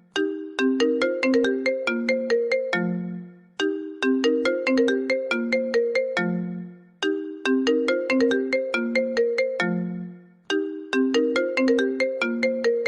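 Smartphone ringtone: a short melody of quick notes ending on a low held note, looping about every three and a half seconds, heard about four times.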